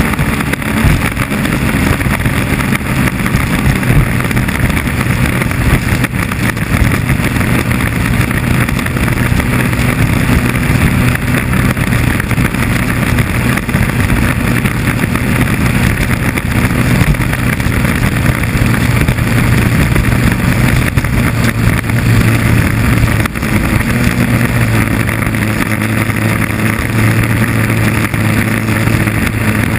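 2.5 Liter Stock inboard hydroplane engine running steadily at high revs at race speed, heard from on board over a rush of wind and water. Its note shifts slightly near the end.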